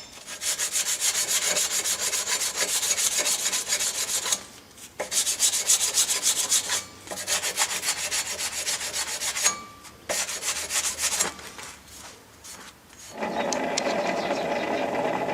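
100-grit sandpaper rubbed briskly over a hardened steel Allen wrench, in four spells of quick scratchy strokes, polishing the metal bright before tempering. Near the end a steady mechanical whir starts up as the forge fire is stoked.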